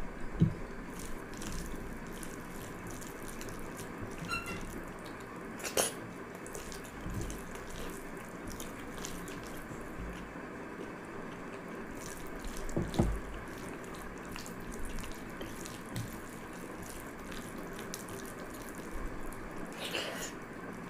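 A hand mixing and squeezing pakhala, cooked rice soaked in water, in a glass bowl: wet squelching and sloshing with scattered small clicks and a few sharper knocks.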